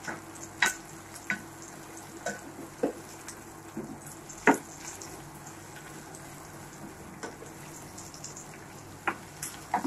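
Sliced onions frying in oil and butter in a stainless steel pan with a faint sizzle, stirred with a spatula that scrapes and knocks against the pan at irregular moments, the loudest knock about halfway through.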